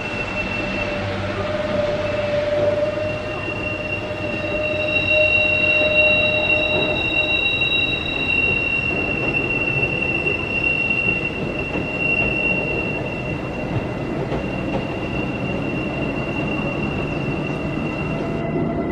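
Bernese Oberland Railway mountain train rolling along a curve, its wheels squealing in long, steady high-pitched tones over the rumble of the running gear.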